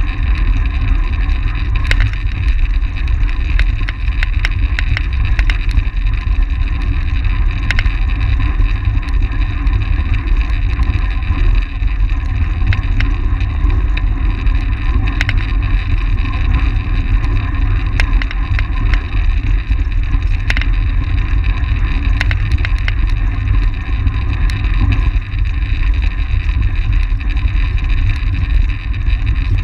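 Loud, steady wind rumble on the microphone of a camera riding on a track bike at speed, over a steady whir from the moving bike.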